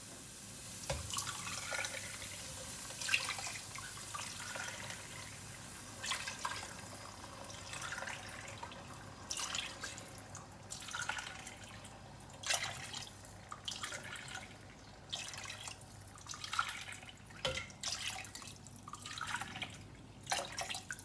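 Water poured cup by cup into a pot of fried rice and chicken, splashing in a series of separate pours with short pauses between them.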